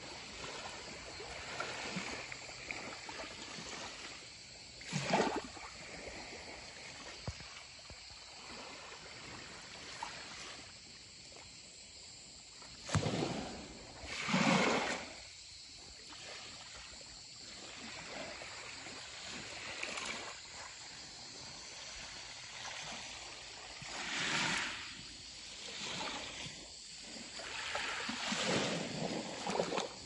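Small waves lapping and washing up onto a sandy shore of a calm sea, a soft steady hiss with several louder wash-ups.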